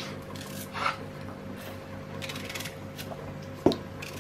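A small knife slicing an onion by hand over a metal bowl of cut potatoes: light clicks and a short rustle of cutting, with one sharp knock near the end, over a low steady background hum.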